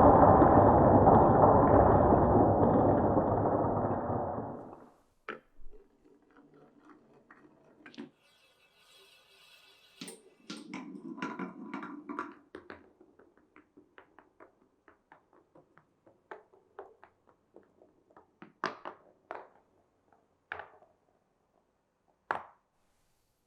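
Marbles on a marble run: a loud, continuous rolling rumble that cuts off about five seconds in. After it come many small clicks and taps of marbles hitting and ticking along the track, with a short second rolling stretch around ten seconds in. A few sharper knocks come near the end, the last one alone.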